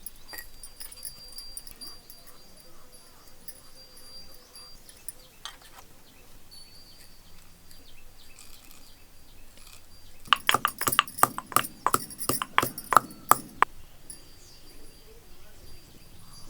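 A quick run of sharp knocks, about five a second for three and a half seconds, starting about ten seconds in, over a faint background with a thin steady high tone.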